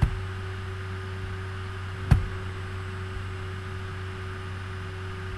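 Steady electrical mains hum with two sharp clicks, one right at the start and a louder one about two seconds in, typical of a computer mouse button being clicked.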